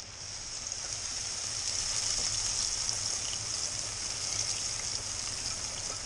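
Annatto seeds sizzling as they are tipped into hot oil in a frying pan: a steady hiss that builds over the first couple of seconds and then holds.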